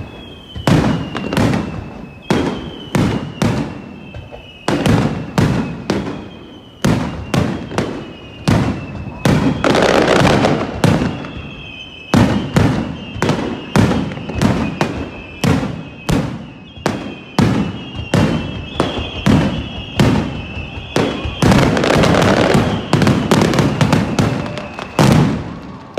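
Fireworks display going off in rapid succession: a continuous string of sharp bangs, with denser crackling barrages about ten seconds in and again near the end, and thin whistling tones that slide slowly down in pitch.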